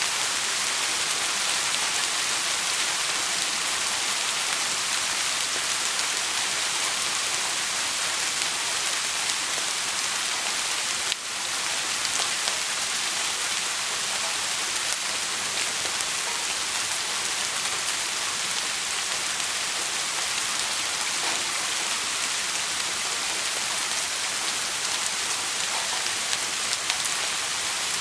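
Steady rain falling on a surface, an even dense hiss weighted toward the high end, with a brief dip about eleven seconds in.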